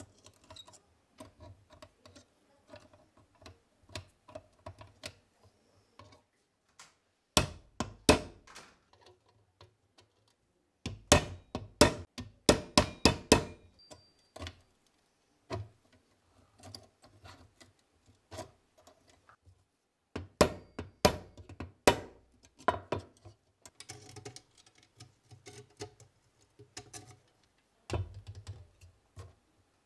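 Sharp metal taps and clicks as a pin punch is worked against a rusted STEN Mk2 trigger housing, in three bursts of quick strikes with the loudest and longest about halfway through, and quieter handling clicks of metal on metal between them.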